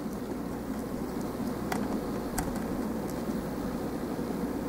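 A few small clicks as plastic model kit parts are pressed together, a clip being snapped onto a bar, over a steady low background hum.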